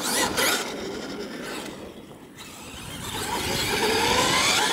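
Radio-controlled scale monster truck's motor whining and rising and falling in pitch with the throttle, over the scrabble of its tyres on dirt, growing louder near the end.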